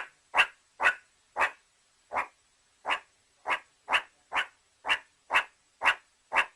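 Dog barking repeatedly in short, sharp barks, about two a second, with a slightly longer pause about two seconds in.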